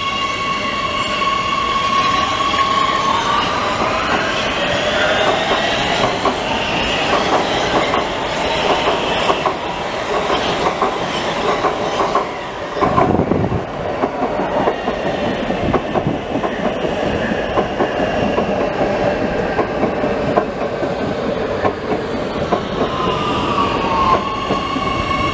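Oslo Metro MX3000 electric train pulling away: the steady electrical whine of its drive rises in pitch as it speeds up. The wheels then run with repeated clicks and clatter over rail joints. Near the end a train slows, its whine falling back to a steady tone.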